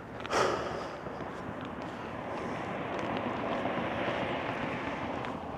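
A short loud puff of breath on the clip-on microphone about a third of a second in, then a passing vehicle's road noise that swells and fades.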